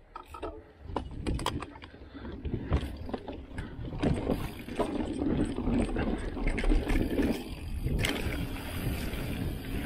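Mountain bike, a Nukeproof Giga, riding a dirt trail, heard from the rider's helmet: tyres rolling over dirt with a low rumble and many sharp rattling clicks and knocks, starting about a second in.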